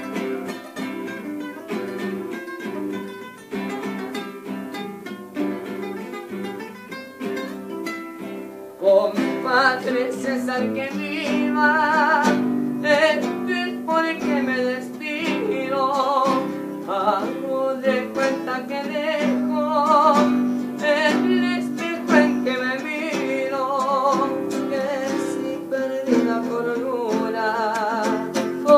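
Two classical guitars playing a tonada cuyana, plucked and strummed together. About nine seconds in, a man starts singing over them with a wavering vibrato, and the music grows louder.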